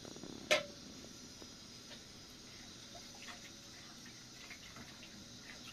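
A single sharp clink with a short ring about half a second in, then faint, scattered small ticks and clicks over a low steady hum.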